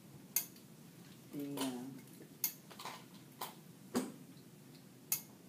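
Sharp separate clicks and knocks from a hose-fed professional steam iron as it is worked and set down over a press cloth on the pressing table, about five in a few seconds.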